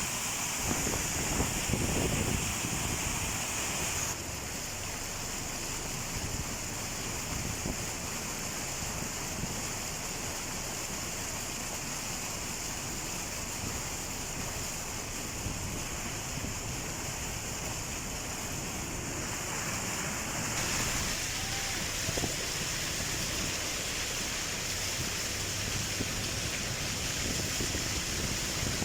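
Floodwater rushing steadily, with wind on the microphone. The sound changes abruptly twice, about four seconds in and again about two-thirds of the way through.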